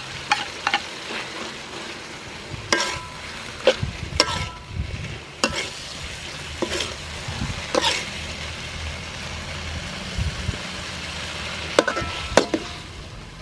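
Scallops sizzling in a hot metal wok while a metal spatula stirs them. The spatula knocks and scrapes against the wok about ten times at irregular intervals, some strikes ringing briefly.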